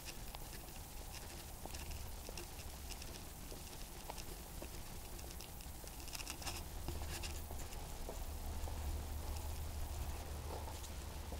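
Faint footsteps and small ticks of handling noise over a low steady rumble, picked up by a small body-worn action camera while walking.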